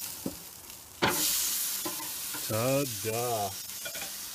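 Rib steak sizzling on a hot barbecue grill as it is flipped over: the sizzle flares up sharply about a second in, as the steak lands on the grate, then settles into a steady sizzle.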